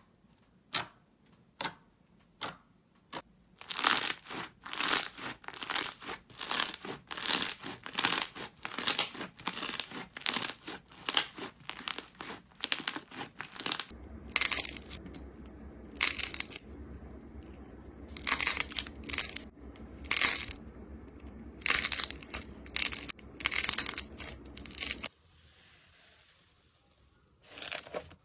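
Slime being squeezed and pressed by hand, crackling and popping in quick runs. It starts with a few separate pops, then turns into dense crackling, with a short quiet gap near the end.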